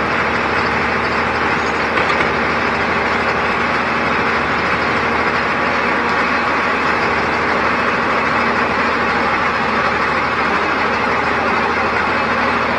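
Motor grader's diesel engine running steadily under load as the machine works a ditch, heard from inside the cab.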